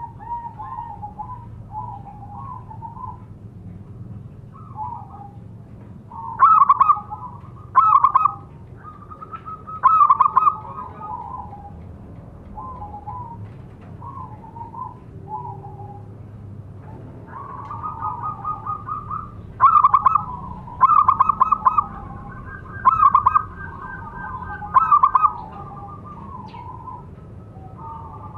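Zebra dove (perkutut) cooing: a run of soft, rippling coos broken by about seven loud, short calls, three in the first half and four in the second.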